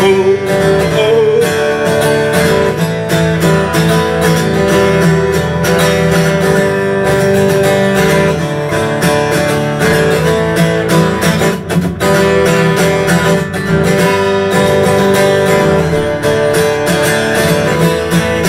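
Acoustic guitar strummed steadily in a repeating chord pattern: a song's instrumental outro. A sung voice trails off about a second in.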